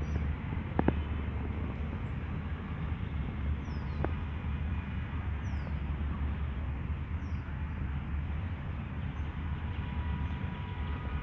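Small birds chirping faintly outdoors, short high falling notes every couple of seconds, over a steady low rumble, with a couple of sharp clicks near the start.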